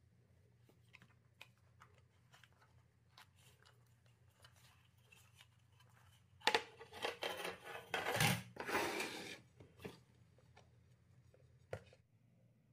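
Food-preparation handling sounds: scattered light clicks and taps, then from about halfway through a few seconds of dense, crunchy crackling and rustling before it settles.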